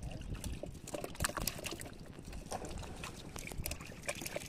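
Wet squelches, drips and small splashes from feet and hands moving through soft tidal mud and shallow water, irregular and close.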